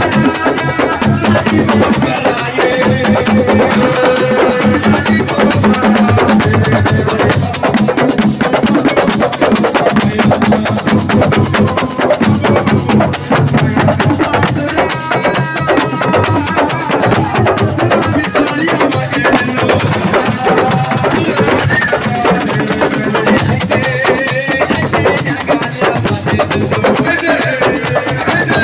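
Live assiko band music: dense, fast drumming with a melody over it.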